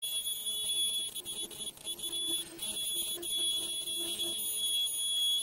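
Ultrasonic lace machine running as it embosses a ribbon strip: a steady high-pitched whine, with a faint pulsing hum beneath it about three times a second.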